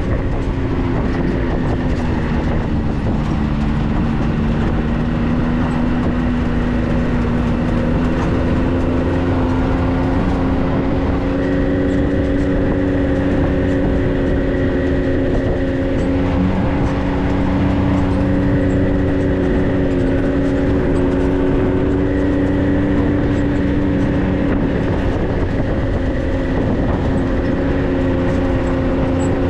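Vehicle engine running steadily under way, its pitch dipping slightly a few seconds in and then rising gently.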